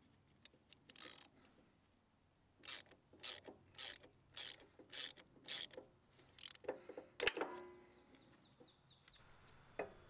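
Ratchet driver with a Torx bit tightening the set screw on a hydraulic pump's shaft coupler: a run of faint ratchet clicks about two a second, then a few sharper metal clicks with a brief ring.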